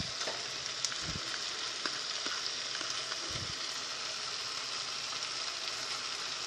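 Tomato masala with freshly added green chilli paste sizzling steadily in the frying pan, with two soft knocks about a second and three and a half seconds in.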